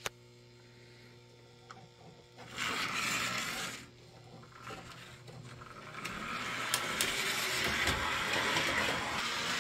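Steady electrical hum, then a 1989 Lionel O27 toy train locomotive with a can motor starts on conventional transformer power. There is a brief burst of motor noise about two and a half seconds in. From about halfway on, the locomotive runs steadily along the track, its motor and wheels growing louder, with a few clicks.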